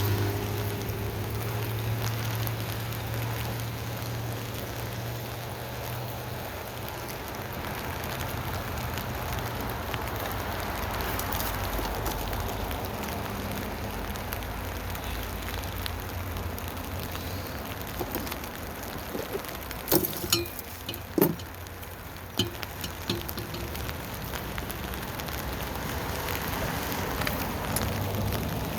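Steady rain pattering on a tent canopy, a constant crackly hiss. A low hum fades out in the first several seconds, and a few sharp clicks come about two-thirds of the way through.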